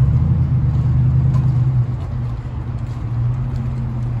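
A steady low engine hum, louder for the first two seconds and then settling a little lower, with faint scattered ticks of rain drips over it.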